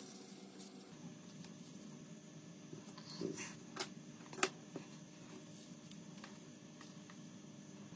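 A few small clicks and taps, the sharpest about four and a half seconds in, over a steady faint hum.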